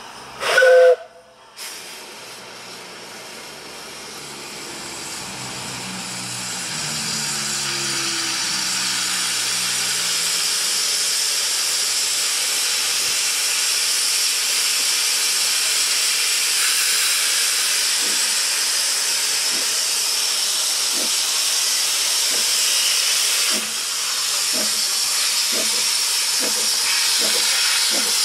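Ffestiniog Railway double Fairlie steam locomotive: one short whistle blast, then a steady hiss of steam from its open cylinder drain cocks that grows louder as it gets under way. In the last third its exhaust beats come in slowly and quicken.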